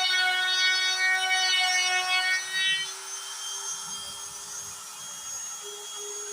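DIY CNC router carving wood, its stepper motors whining in several tones at once that jump in pitch as the axes change speed. The whine drops away about three seconds in, leaving a quieter steady hum.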